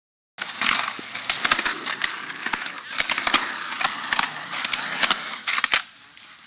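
Skateboard wheels rolling over rough concrete, with many sharp clacks and knocks from the boards. It starts abruptly after a moment of silence and gets quieter near the end.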